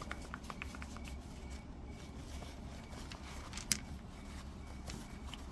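Faint rustling and light clicks of protective wrapping being worked off a mailed rock specimen, with one sharper tick about three and a half seconds in, over a low steady hum.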